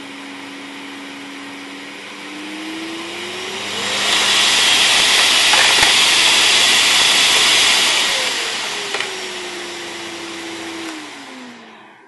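Bosch GS-50 Power Animal cylinder vacuum cleaner running: its motor whine rises in pitch and the rush of air grows loud as the suction dial is turned up to maximum a few seconds in. It holds there, then the pitch and level fall as the suction is turned back down, and the motor winds down near the end as it is switched off.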